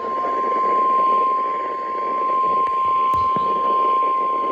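NOAA Weather Radio warning alarm tone: one steady, unbroken beep held over radio static, the signal that a warning message is about to be read.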